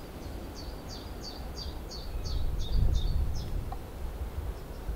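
A small songbird singing a phrase of about nine repeated high, falling notes, roughly three a second, which stop about three and a half seconds in. Low wind rumble on the microphone runs underneath, swelling briefly midway.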